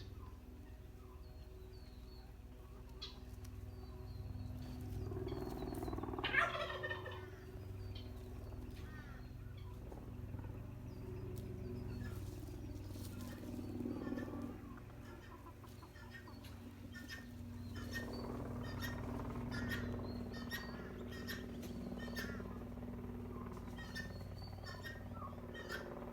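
Farmyard poultry calling: a turkey gobbling, loudest about six seconds in, among many short chirps and calls of chickens and guinea fowl.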